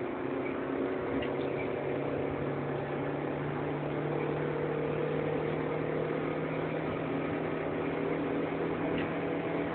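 Fourth-generation Honda Civic's four-cylinder engine heard from inside the cabin, held at high revs under way and climbing slowly from about 4,000 toward 5,000 rpm as a steady, even engine drone.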